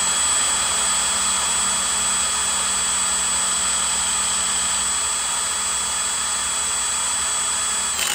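Electric drill spinning an alternator at a steady speed, a loud even whir with a high steady whine, to test whether the alternator charges. It stops abruptly near the end.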